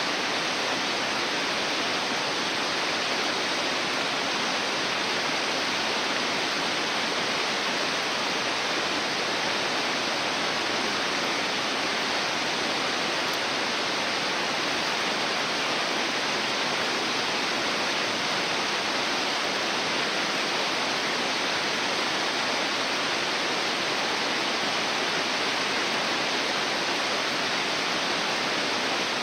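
Mountain stream water rushing, a steady, even sound that does not change.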